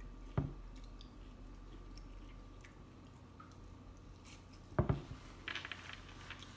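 Close-up eating sounds: a person biting and chewing food, with small wet mouth clicks. There is a short knock just after the start and a louder bite or smack about five seconds in.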